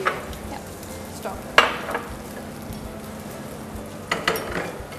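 Chicken pieces frying in a pan with a steady sizzle, stirred with a wooden spatula, with a few sharp clacks of the utensil against the pan: near the start, about a second and a half in, and again around four seconds in. A steady low hum runs underneath.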